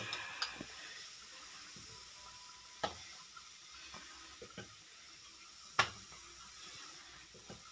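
Faint, steady sizzling of a layered parotta frying in oil on a dosa griddle (tawa). A few sharp clicks cut through it, the clearest about three seconds in and again near six seconds.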